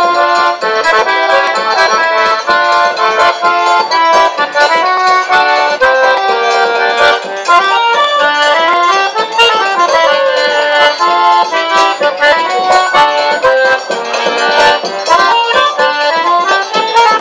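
Forró music: an accordion plays an instrumental melody between sung verses, with light percussion ticks under it.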